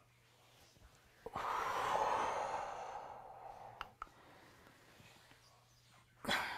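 A woman's long exhale, starting about a second in and fading over about two seconds, breathed out with the effort of a full-body roll-up; a short, sharp breath near the end.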